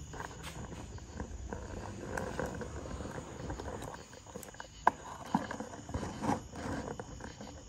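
Handling noise from a phone camera being carried and set down on a workbench: irregular rustles and a few short knocks. Crickets chirp steadily and faintly in the background.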